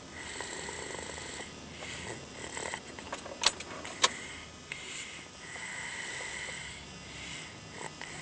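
Slow snoring breaths from a sleeper, each a drawn-out hiss. Two sharp clicks come about three and a half and four seconds in.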